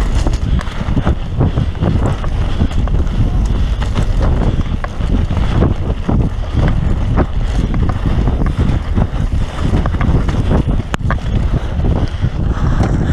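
Wind buffeting the microphone as a mountain bike rolls fast down a dirt singletrack, with steady tyre rumble and frequent short rattling knocks from the bike over bumps.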